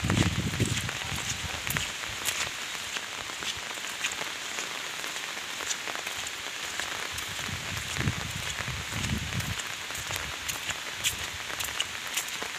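Heavy rain falling on floodwater and leaves: a steady hiss with many separate drop hits. A low rumble comes right at the start and again about eight seconds in.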